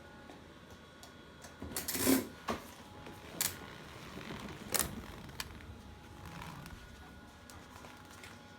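A small clockwork wind-up toy clicking and clattering, with a handful of sharp, irregular clicks and taps between about two and five and a half seconds in.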